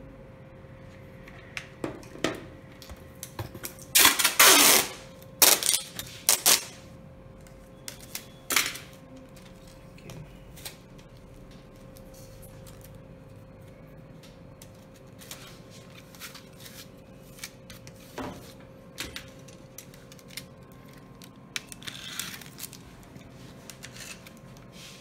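Adhesive tape pulled off the roll in a loud rip about four seconds in, then a few shorter rips, with clicks and rustles from handling the foam board. Near the end a snap-off craft knife scrapes along the board, trimming excess tape.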